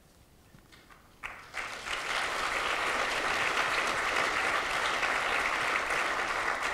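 Audience applauding, coming in about a second and a half in and then holding steady.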